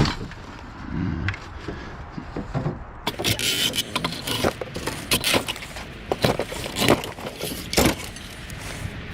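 Scrap metal being handled: a quieter rustle at first, then from about three seconds in a dense run of clanks, knocks and scrapes, with light jangling.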